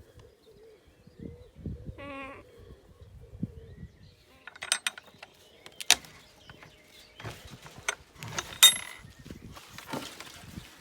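A single wavering bleat from a sheep or goat-like farm animal about two seconds in, followed by a run of sharp knocks and clatters, the loudest of them a little before the end.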